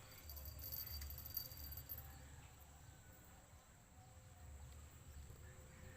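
Faint high-pitched insect trilling, strongest in the first two seconds, over a faint low rumble.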